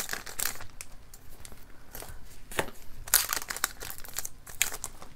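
Foil Pokémon booster pack wrapper crinkling in the hands and being torn open, a run of sharp crackles.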